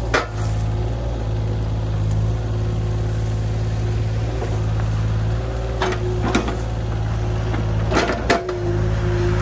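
Mini excavator's diesel engine running steadily under load, with a steady higher whine, as its bucket wrenches at a tree stump. Sharp cracks and knocks sound at the start, twice about six seconds in and twice more close together near the end, as the stump is forced.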